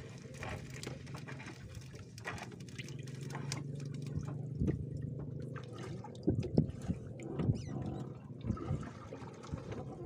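Water dripping and splashing off a wet fishing net as it is hauled up by hand, with scattered small splashes and knocks. A steady low hum runs underneath.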